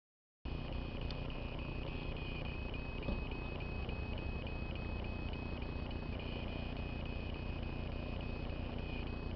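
Handheld Doppler radio direction finder giving a steady high-pitched tone, regularly broken by faint ticks, over a low background rumble. The sound cuts in about half a second in.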